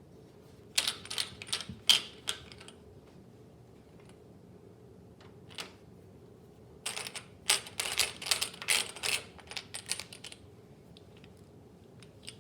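Clicks and light clattering of hard computer parts being handled and fitted into a PC case, in two flurries: a short one about a second in and a longer one from about seven to ten seconds.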